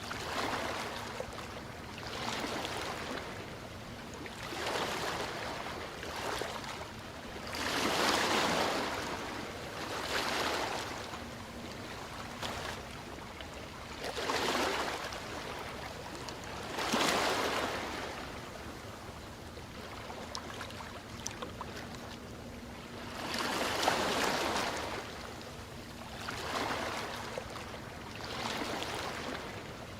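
Ocean waves washing in and drawing back, a rush of surf that swells and fades every two to three seconds, with a few bigger surges among the smaller ones.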